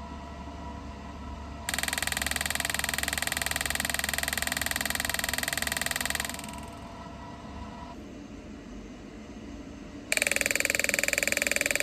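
MT168 PLUS treatment machine's working handle firing a rapid, even train of pulses at its set frequency. It runs for about four and a half seconds, stops, and starts again louder near the end, over a low steady machine hum.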